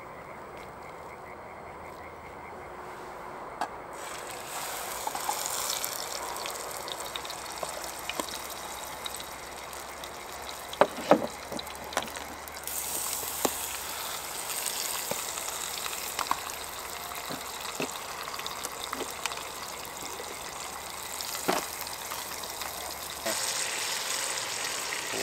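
Steak sizzling in a thin frying pan over a strong gas burner, a steady hiss that grows louder a few seconds in, with a few sharp clinks of a utensil on the pan near the middle.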